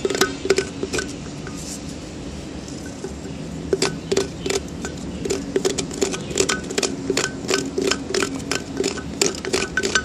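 A pointed wooden stick scraping and knocking inside a terracotta pot nest box, prying loose caked budgie droppings: a rapid run of sharp clicks and scrapes, sparse at first and coming thick and fast from about four seconds in.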